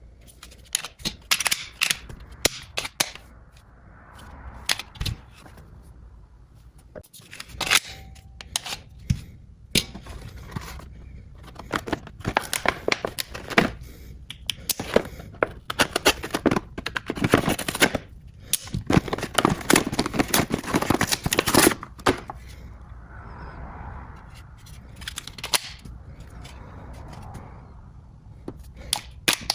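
Metal and plastic gun parts and their packaging being handled: a long run of sharp clicks and clacks, densest in the middle, with softer rustling about four seconds in and again near the end.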